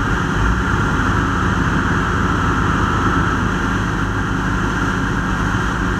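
Fire engine's diesel running steadily at pumping speed, supplying a hose stream, with a thin steady whine above it for about the first three seconds.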